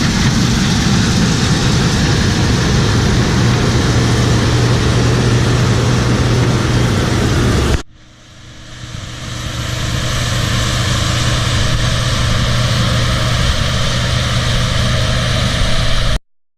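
Heavy farm machinery engine running with a loud steady drone. It cuts off abruptly about eight seconds in, returns and builds up over a couple of seconds, then stops suddenly near the end.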